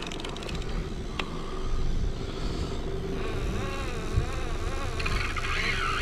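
Steady low rumble of the boat's idling engine while a fish is played on a multiplier reel, with a wavering whine from the reel in the middle as the line is worked against the fish's pull.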